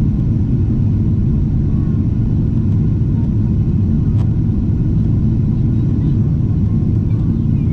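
Steady low rumble of a Boeing 777-300 airliner in flight: engine and air noise running evenly, with no change in level.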